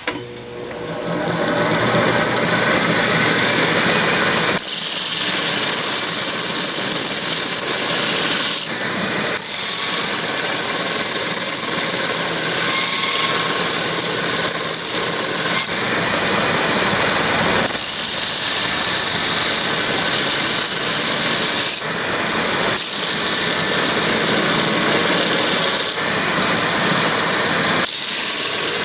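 Homemade 2x72 belt grinder spinning up under its electric motor over the first couple of seconds, then running steadily with a loud hissing belt. The hiss changes every few seconds as metal is pressed to the belt at the contact wheel and lifted off.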